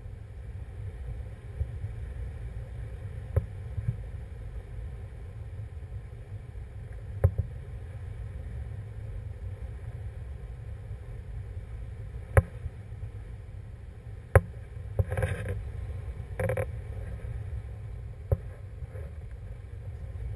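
Wind rushing over a handheld camera's microphone in the airflow of a tandem paraglider flight, a steady low rumble. A few sharp clicks and two short gusty bursts in the second half break through it.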